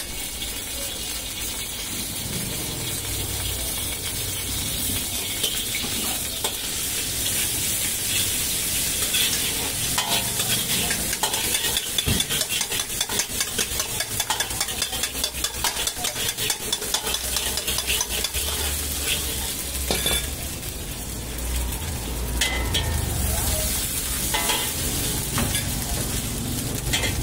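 Oil sizzling in a large iron wok over a gas flame while a steel ladle stirs and scrapes against the pan in quick repeated strokes.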